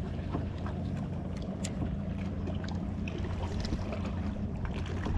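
Steady low hum of a boat motor running at constant speed, with light water splashes and small ticks over it.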